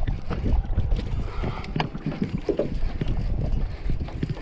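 Wind buffeting the microphone in a low rumble, over water noise around a small jon boat, with a few sharp clicks.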